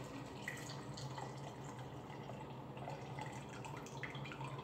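A shaken vodka gimlet trickling in a thin stream from a stainless steel cocktail shaker's strainer top into a large stemmed glass, faint, with small drips.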